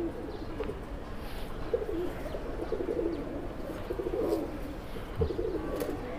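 Domestic flying pigeons cooing, several birds overlapping in repeated low, warbling coos.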